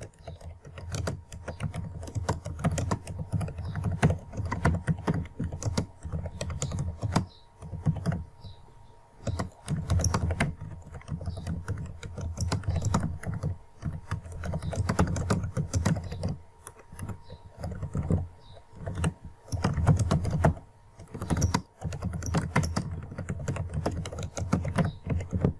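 Computer keyboard keys clicking in quick, uneven runs with short pauses: a line of text being typed as a typing-speed test.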